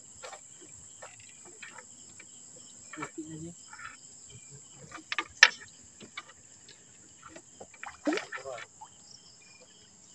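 Steady high chirring of night insects, with scattered light knocks and rustles from a fishing net being hauled by hand over the side of a wooden outrigger boat. A sharp knock about halfway through is the loudest sound.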